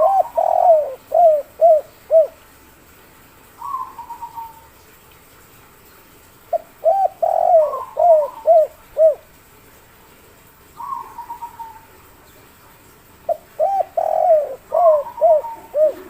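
Spotted dove (derkuku) singing its three-part 'kuk 3' coo: three phrases of quick, deep notes, falling off into shorter notes and repeated about every six and a half seconds. A fainter, higher trilling call comes between the phrases.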